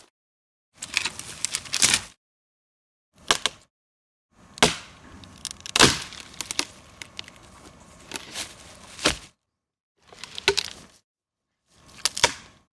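Wooden branches snapping and cracking in a series of five short separate takes, each a cluster of sharp cracks cut off by silence. The longest, in the middle, holds several loud snaps over about five seconds.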